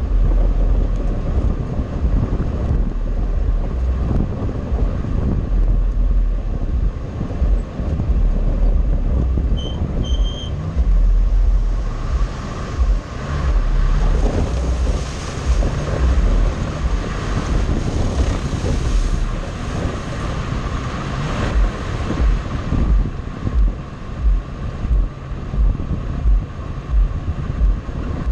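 An off-road vehicle driving on a dirt track, its engine running under heavy wind buffeting on the microphone. From about twelve seconds in, a steady hissing splash lasts for several seconds as it drives through muddy water.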